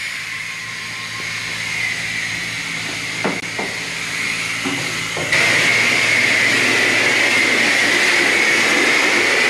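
Car-wash pressure-washer wand spraying steadily with a hiss over a low pump hum, the water striking the dusty body of a car. A couple of knocks near the middle, and the spray jumps louder a little past halfway.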